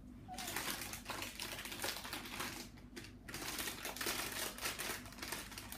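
Soft rustling and crinkling made of a dense run of small clicks, with brief pauses: close handling noise.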